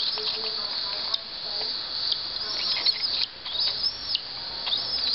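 Cockatiel chick begging while being spoon-fed: a rapid, continuous high-pitched chittering of short calls.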